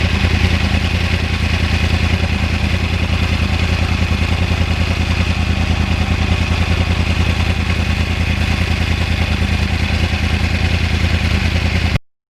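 2009 Yamaha R1 crossplane inline-four engine running steadily at one unchanging engine speed, with a rapid even pulse. It starts abruptly and cuts off suddenly near the end.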